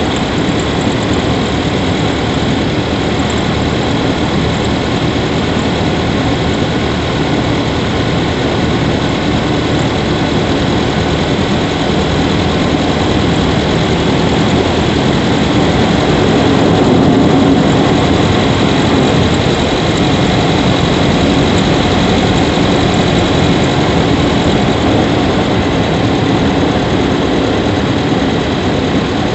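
Subaru Levorg 1.6GT-S's turbocharged 1.6-litre flat-four engine running while driving, heard from inside the engine bay by the intake, steady with a brief swell in loudness about halfway through.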